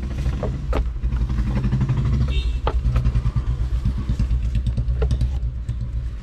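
Low, steady motor-vehicle rumble, with a few light knocks as a wooden dining tray is fitted into the car.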